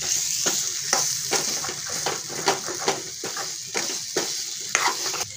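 Chicken sukka masala sizzling in a metal kadhai while a metal spoon stirs it, scraping against the pan about twice a second over a steady frying hiss.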